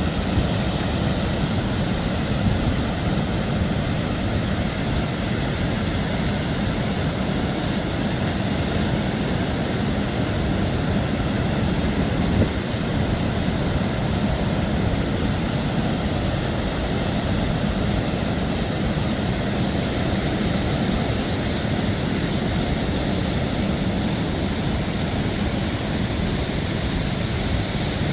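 Steady roar of ocean surf and wind, an even, unbroken wash of noise with a couple of small knocks.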